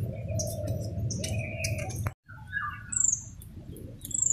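Birds chirping, with short, high, falling chirps about three seconds in and again near the end. Light clinks and knocks are heard in the first half.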